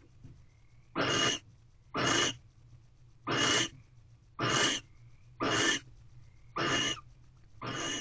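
Barn owl giving a run of rasping hisses, seven in all, each under half a second, about one a second.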